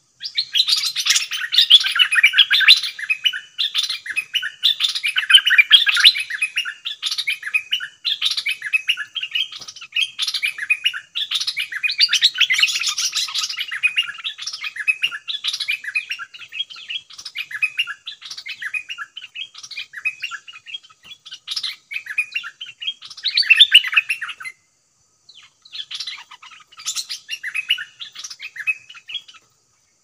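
Nok dok taeng bulbuls, a caged decoy and a wild bird, calling in rapid, harsh chattering 'rik' calls, nearly without pause. The chatter breaks off about 24 seconds in and resumes more sparsely.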